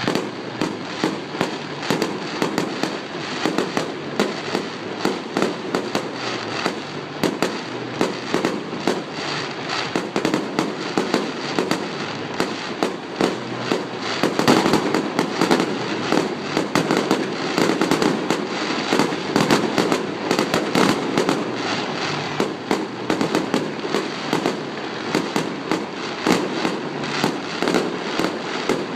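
Fireworks going off in a rapid, continuous barrage of bangs and crackles, busiest from about halfway through.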